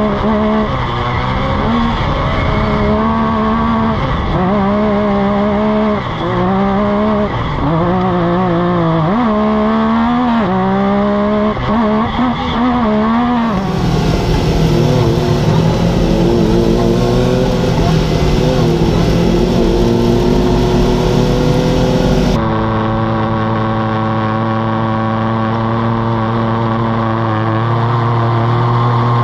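Side-by-side racing engines heard from inside the cab at full race pace. For the first half the revs rise and fall again and again; then a busier stretch comes with other side-by-sides running close by; in the last few seconds one engine holds a steady high note.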